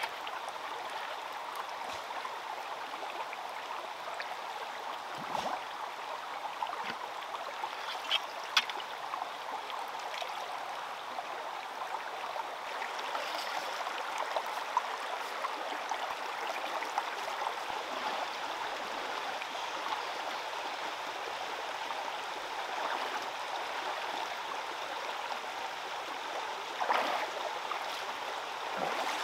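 Shallow stream running steadily over stones and gravel, with a few short knocks and splashes. The loudest splashing comes near the end, as someone wades through the water.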